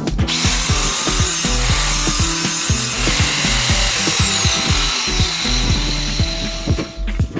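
Background music with a steady beat, over a loud steady whirring hiss that starts just after the beginning and cuts off near the end.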